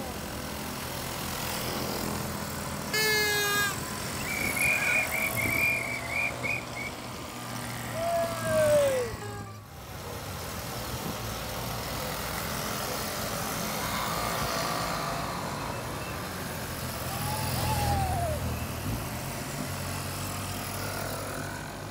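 VéloSoleX mopeds riding past in a parade, their small two-stroke engines running steadily. A short shrill blast comes about three seconds in, followed by a rapid high warbling toot and a few brief calls.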